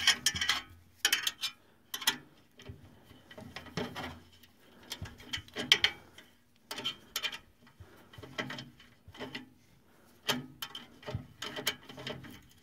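Socket ratchet clicking in short irregular runs as it backs out the screw that holds a gas furnace's igniter assembly.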